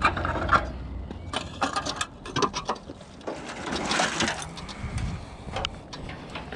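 Scrap metal being handled and moved: an irregular run of clanks, knocks and scrapes.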